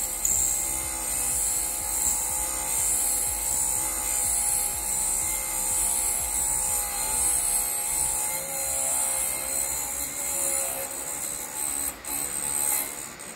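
FABTEC MR-13A drill-bit sharpener running, its grinding wheel taking metal off the point of an 8 mm twist drill as the chuck is turned in the sharpening port: a steady motor whine under a high grinding hiss. The hiss lasts while the wheel is still removing metal, and it breaks off near the end as the drill is pulled out.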